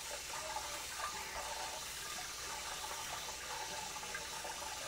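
Cold tap water running into a sink and splashing through a plastic colander, with small wet splashes as blanched water spinach is tossed and rinsed by hand.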